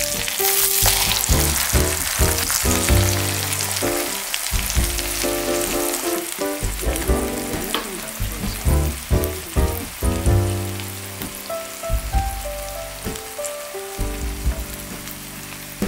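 Egg and minced Paederia leaf omelet sizzling in hot oil in a nonstick frying pan, with a spatula working it at first. Light melodic background music plays underneath.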